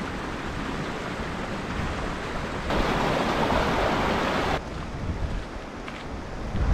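A small stream running over stones: a steady hiss of water that gets louder for about two seconds in the middle and then drops back. Some wind on the microphone.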